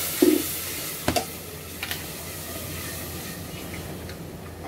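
Onion-and-spice masala hissing and steaming in a hot aluminium pressure-cooker pot just after a little water has gone in; the sizzle dies down after about the first second. A wooden spoon stirring it knocks against the pot twice.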